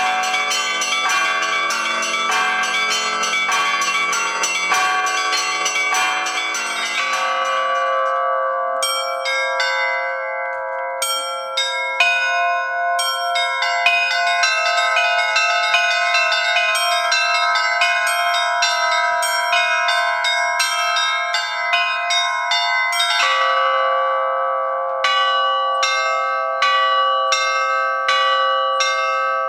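Russian Orthodox church bells rung by hand, their clappers worked by ropes. At first the deep bass bell sounds under a dense chime. About eight seconds in the bass bells stop, and the smaller bells carry on striking a quick repeating rhythm over the ringing of the middle bells.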